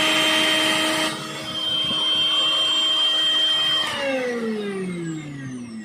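Suruchi Elantra 800-watt mixer grinder's motor running at full speed with a steady high whine, dipping briefly about a second in. Near the end it is switched off and its pitch falls steadily as it spins down.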